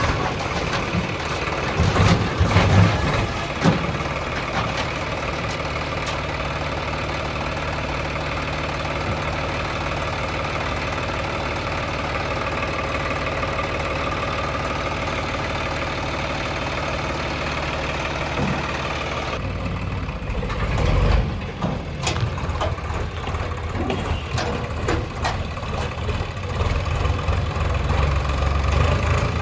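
Heavy diesel engine running steadily, with a few knocks a few seconds in. About two-thirds of the way through the sound changes abruptly to a deeper, louder engine note.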